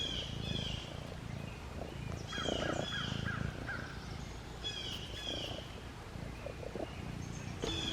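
Domestic cat purring steadily close up, with a bird chirping a few short falling notes in the background.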